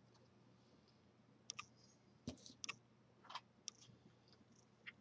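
Faint, scattered clicks and light taps of cardstock box panels being handled and folded, starting about a second and a half in.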